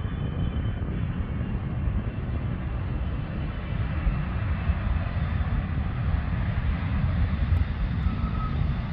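Qatar Airways Boeing 777 twin-engine widebody jet on its takeoff roll: a steady low jet rumble that grows slowly brighter as the aircraft rolls closer.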